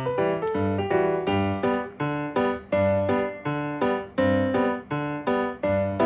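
Background music: a piano-like keyboard playing a steady, rhythmic tune with a bass line.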